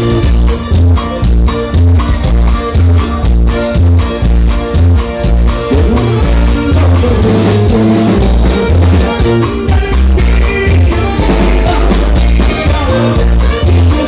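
Loud dance band music with a pumping bass line and a steady beat; the pattern breaks about six seconds in before the beat picks up again.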